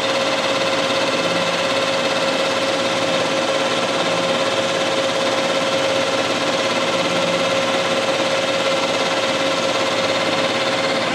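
Manual metal lathe running, its spindle turning a steel shaft, with a steady motor-and-gear hum and one held whine. The tool is being brought up to find the end of the shaft.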